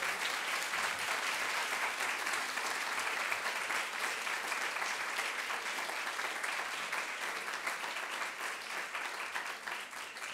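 Audience applauding: steady clapping from many hands, beginning to thin out near the end.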